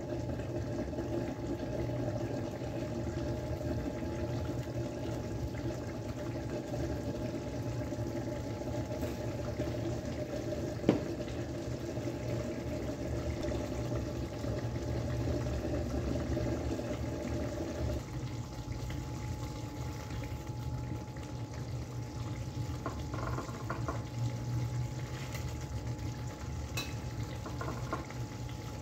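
Burgersteak simmering and bubbling in a stainless steel pan on an induction cooktop, easing a little about two-thirds of the way through. One sharp click about eleven seconds in, and a few light clinks of a metal spatula near the end.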